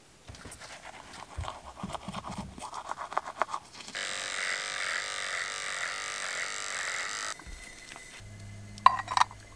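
Electric beard trimmer buzzing steadily for about three seconds in the middle. Before it come rustling and light clicking. After it there is a low hum and a couple of sharp clicks near the end.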